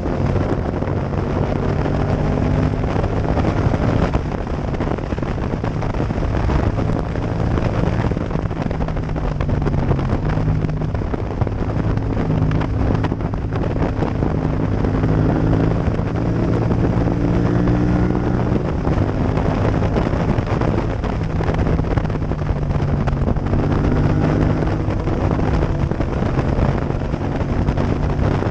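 Yamaha MT-07's parallel-twin engine running hard at speed, its pitch climbing and falling back several times, with wind rushing over the microphone.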